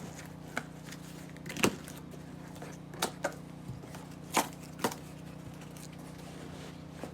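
Scattered sharp clicks and knocks, about seven in all, of small parts and their packaging being handled, over a steady low hum.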